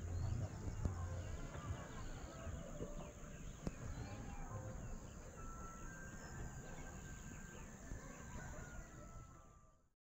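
Morning outdoor ambience: birds chirping and calling, over a steady high-pitched insect drone, with a low rumble in the first second or so. Everything fades out near the end.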